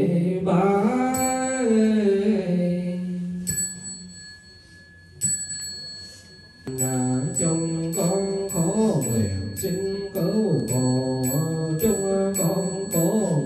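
Buddhist chanting by voices holding long notes; a bell is struck once about three and a half seconds in and rings on through a short lull. Then the chanting resumes over a steady beat of wooden-fish knocks, about two a second.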